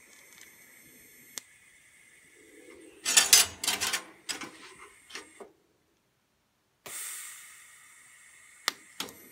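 A TIG welding arc hisses faintly and stops with a click about a second and a half in. Then 3 mm steel sheet pieces rattle and scrape loudly for a couple of seconds as they are set in place on the welding table. After the sound cuts out for about a second, a steady faint hiss returns, with two sharp ticks near the end as the tungsten is touched to the workpiece for a lift-arc start.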